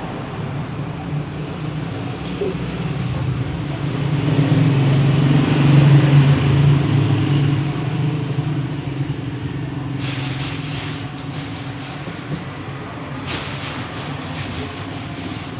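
A motor runs with a low, steady hum that swells louder a few seconds in and then eases off. Scattered light clicks and rattles come in during the second half.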